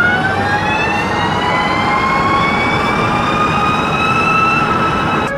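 Electric drivetrain whine of the Nemesis electric supercar as it accelerates, heard from inside the cabin. The whine rises steadily in pitch with road speed for about four seconds, then levels off near the end.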